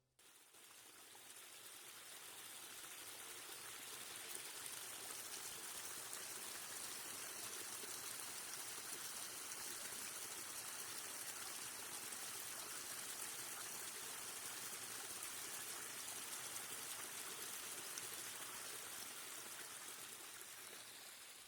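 Steady rush of running water, fading in over the first few seconds and fading out near the end.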